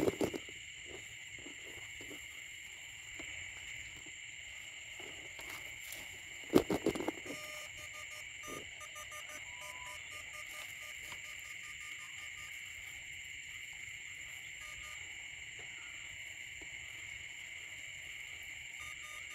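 Steady high-pitched chorus of night-calling insects and frogs. A few loud knocks and rustles from handling come at the very start and about six and a half seconds in.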